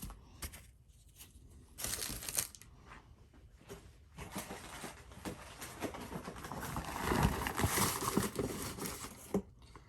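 Packaging rustling and crinkling as a shipping package is rummaged through: a short burst about two seconds in, then a longer stretch of crinkling with small clicks from about four seconds in until near the end.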